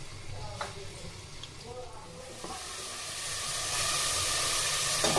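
Chopped onions frying in hot oil in a steel pot: a sizzle that starts faint and becomes loud and steady from about three seconds in.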